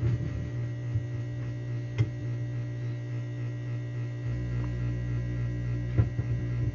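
Steady electrical mains hum from the record-playing sound system, with a few short clicks, about two seconds in and again about six seconds in.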